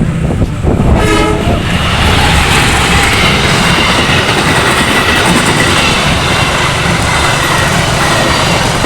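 Train passing close by: a short horn blast about a second in, then the steady loud rush of the train running past on the rails.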